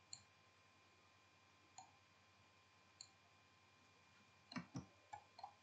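Faint computer mouse clicks over near silence: single clicks near the start and about two and three seconds in, then a quick run of several clicks near the end.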